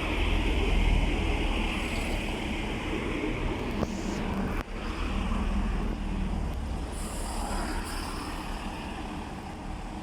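Chiltern Railways Class 165 diesel multiple unit running into the platform and slowing, a steady rumble of wheels on rail, with a couple of clicks about four seconds in and the sound easing off towards the end.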